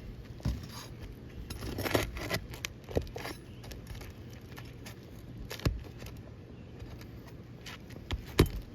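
Nails being pried out of asphalt roof shingles with a metal tool: irregular metallic scrapes and sharp clicks, busiest about two seconds in, with a loud click near the end.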